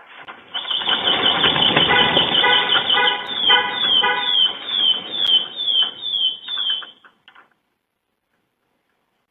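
Electronic alarm sounding loudly with quick repeated falling sweeps, about two to three a second, over a pulsing tone and background noise. It cuts off suddenly about seven and a half seconds in.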